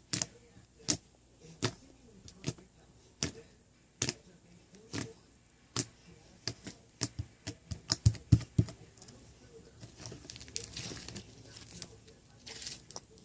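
Slime being pressed and worked by hand, giving sharp clicking pops, at first about one a second, then quicker and uneven, followed by a softer crackling rustle near the end.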